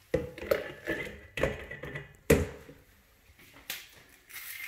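Stainless steel bowl and plastic blender jar knocking together while juice is poured back into the blender: several sharp knocks and clinks, the loudest a little over two seconds in.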